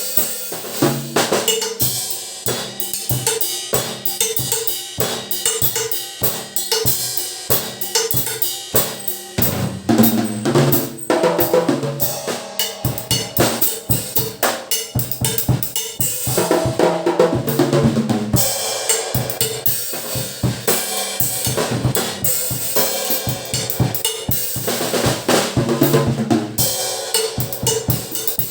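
Acoustic drum kit played continuously in fast grooves and fills: snare, bass drum and tom strikes under hi-hat and cymbal wash, with rolls around the toms twice.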